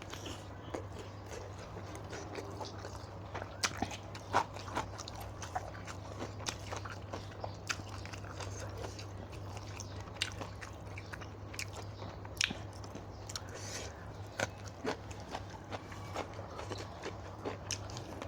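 Close-up eating sounds: a person biting and chewing crunchy food such as som tam papaya salad and raw vegetables, with irregular wet clicks and crunches. A steady low hum runs underneath.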